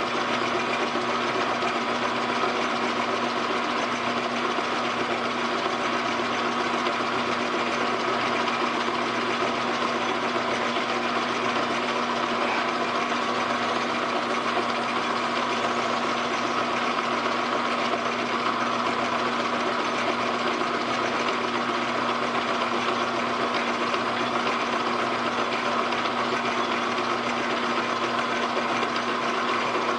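Metal lathe running steadily with an even hum and a constant tone, its spindle turning a brass workpiece as a half-inch twist drill bores it out.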